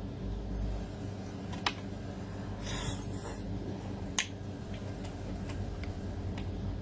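A few sharp clicks of small sea snail shells being handled, with a brief sucking sound about halfway as the snail meat is drawn out, over a steady low hum.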